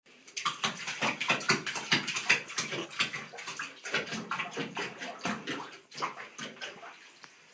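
A small dog paddling its legs in shallow bathtub water, making quick rhythmic splashes several times a second that tail off near the end.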